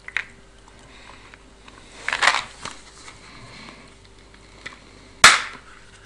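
Candy packaging being handled: a short rustle about two seconds in, then one sharp snap a little after five seconds in.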